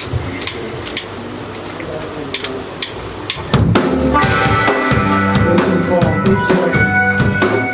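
Live band music: a softer intro with sharp drum hits over low bass notes, then about three and a half seconds in the full band comes in louder, with drum kit and sustained pitched instruments.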